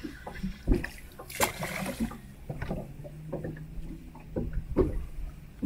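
Handling noise aboard a PVC inflatable boat during an aggressive jigging retrieve with a spinning rod: scattered knocks and rubbing against the boat with small water sounds. A low steady hum comes in about halfway.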